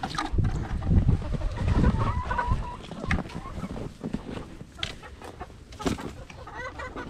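Hens clucking in a coop, a few short calls in the middle and more near the end, over rustling, bumping and knocks as a water bowl is carried in and set down.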